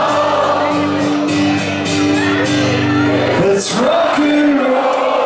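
Live acoustic performance: a strummed acoustic guitar with held sung notes and crowd voices joining in, and a sharp falling shout about three and a half seconds in.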